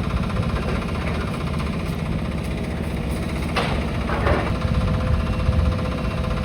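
Demolition excavator's diesel engine running steadily, with a short crunch and clatter of breaking building material about three and a half seconds in.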